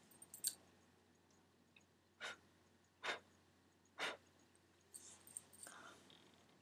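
Near silence broken by three short, soft breaths about a second apart, close to the microphone.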